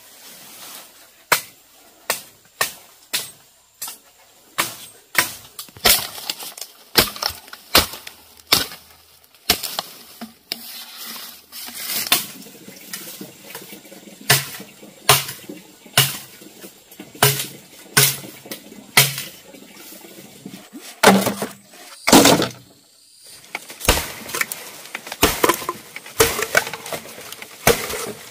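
Repeated sharp strikes or knocks, irregular, about one or two a second, with a longer, heavier one a little past the three-quarter mark followed by a short pause.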